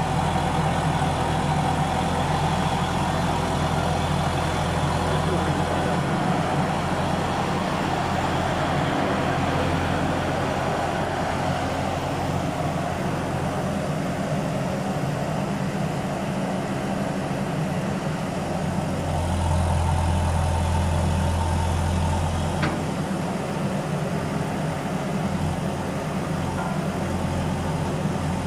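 Kaiser S2-4 walking excavator's diesel engine running steadily as the machine drives slowly on its wheels, its low drone swelling for a few seconds about two-thirds of the way through.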